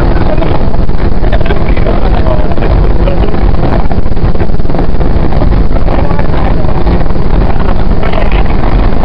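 115 series electric train running at speed, heard from inside the carriage: a loud, steady rumble of wheels on rail and running gear, with a faint steady hum.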